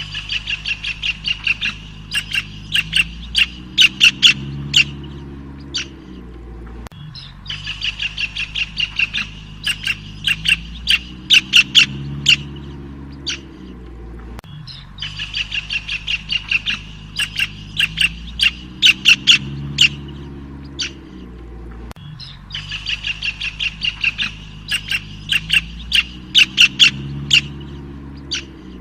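Small songbird singing: runs of quick, sharp chirps, the same phrase coming back about every seven and a half seconds, over a faint low hum.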